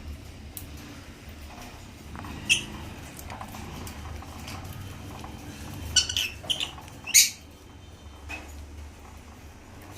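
African lovebirds giving short, shrill chirps: one about two and a half seconds in, a quick run of three or four around six seconds, the loudest just after seven seconds and a softer one a second later.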